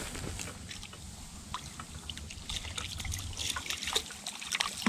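Water trickling and lapping at the bank, with scattered small ticks and splashes that come more often in the second half, over a steady low rumble.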